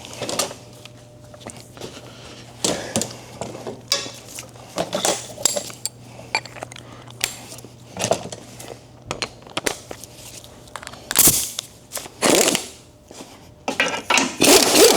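Irregular metallic clinks and clanks of hand tools and parts being handled during under-car repair work, over a faint steady low hum.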